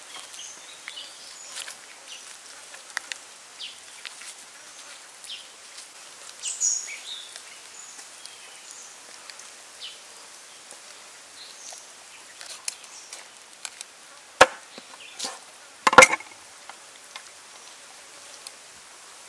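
Knife chopping raw duck on a wooden board: two sharp chops about a second and a half apart near the end, the second the louder. Before them there are small, quiet clicks from handling the raw meat, with faint high chirps behind.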